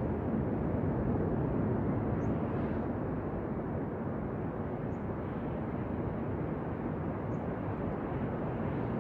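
Ocean surf: a steady rumbling wash of waves with no single break standing out.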